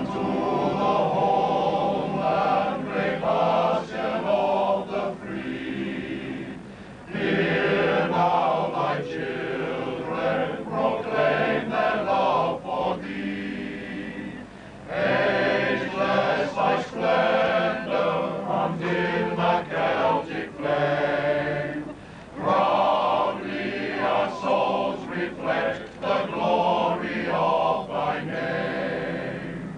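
Male voice choir singing together in long phrases, with brief pauses between phrases about every seven or eight seconds.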